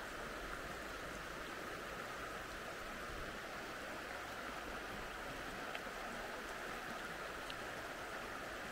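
River water flowing: a steady, even noise that holds unchanged throughout.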